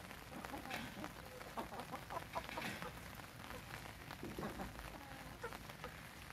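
Young gamefowl chickens clucking faintly, short calls scattered here and there.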